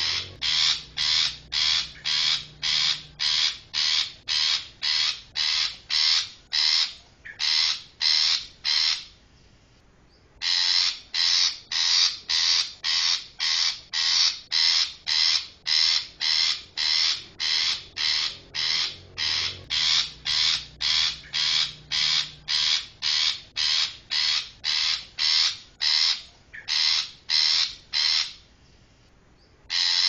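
Long-tailed shrike (cendet) giving harsh, rasping calls in long, even runs of about three a second, with a pause about a third of the way in and another near the end.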